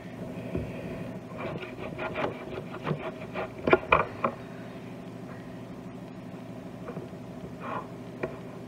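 Knife cutting and scraping on a cutting board while fat is trimmed off a raw steak: a run of knocks and rasping strokes, then a quieter stretch with a couple of single knocks near the end, over a steady low hum.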